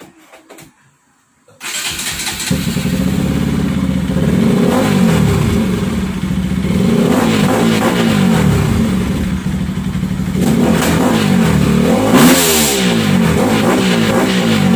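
Bajaj Pulsar RS200's single-cylinder engine starting about one and a half seconds in, through a large aftermarket canister with its silencer insert removed. It then idles with several throttle blips that rise and fall in pitch.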